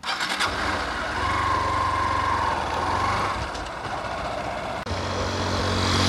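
Motorcycle engine starting suddenly and then running steadily, growing louder near the end.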